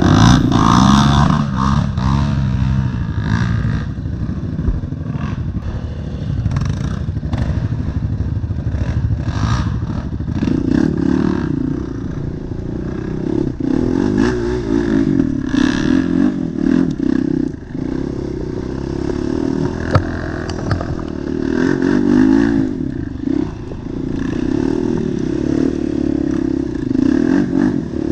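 ATV engine revving up and down under load while churning through mud, with clattering knocks from the machine, one sharp knock about twenty seconds in.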